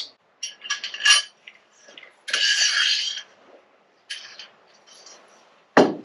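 Light metallic clicks and clinks of a small steel two-hole T-nut plate handled against 80/20 aluminium extrusion, with a short scrape of under a second a little over two seconds in and a few faint ticks later.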